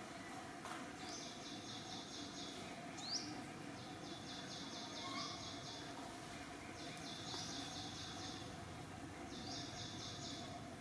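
A bird singing a high, rapid trill in repeated phrases about a second and a half long, with short gaps between them. A single short rising chirp comes about three seconds in. Steady outdoor background noise runs underneath.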